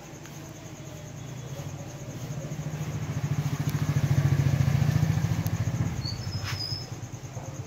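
A vehicle engine passing by, a low pulsing rumble that grows louder to a peak about halfway through and then fades. A short high chirp comes near the end.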